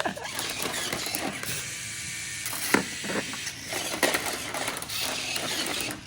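Remote-control toy dinosaur's electric motor and plastic gearbox running: a steady mechanical rattle with a few sharper clicks about halfway through.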